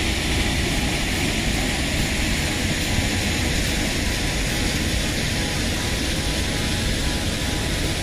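Steady rushing of a waterfall's falling water, an even hiss over a deep rumble.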